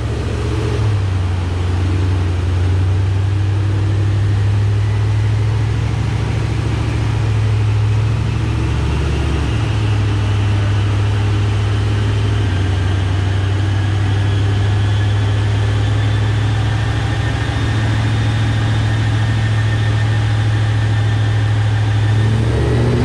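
Ford 4.6 L three-valve V8 of a Mustang GT idling steadily on a chassis dyno, with a deep, even drone through long-tube headers and an aftermarket exhaust.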